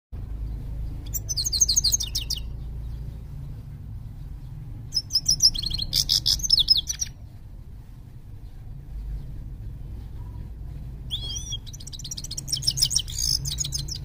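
A caged goldfinch (saira) singing in three bursts of rapid, high twittering notes, each lasting one to three seconds with short pauses between.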